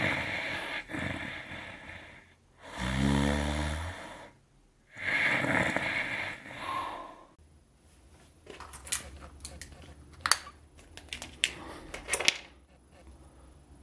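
A person snoring: three loud snores in the first seven seconds, the one about three seconds in carrying a low, rattling buzz. They are followed by several seconds of scattered sharp clicks and taps.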